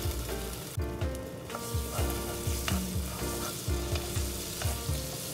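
Curry paste sizzling in hot oil in a nonstick frying pan, with a wooden spatula scraping and stirring it, under background music with a steady beat.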